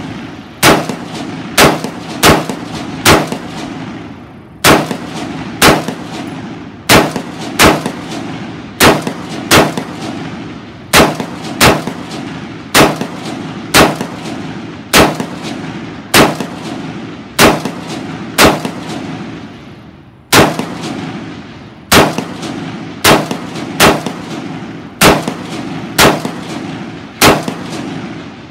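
Beretta ARX-100 5.56 mm rifle fired semi-automatically: about thirty single shots, roughly one a second at an uneven pace, with two short pauses, each crack trailing off in a short echo.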